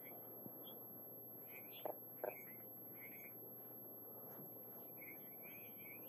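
Faint small-bird chirps, many short calls scattered over a steady outdoor hiss, with two brief duller sounds close together about two seconds in.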